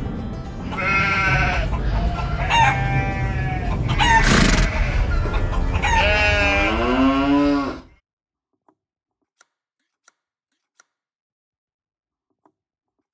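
Outro jingle over the end card and logo: music with long, wavering pitched calls, the last one gliding down. It cuts off suddenly about eight seconds in, and near silence with a few faint ticks follows.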